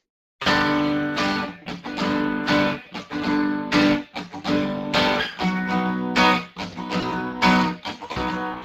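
Acoustic guitar strummed in a steady run of chords, starting after a short silence.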